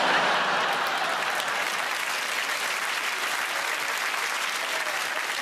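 Studio audience applauding, loudest at the start and easing off slowly.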